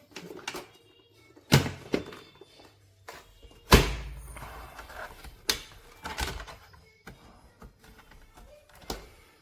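A handful of heavy thuds and knocks at irregular intervals, the loudest about two fifths of the way in, over faint background music.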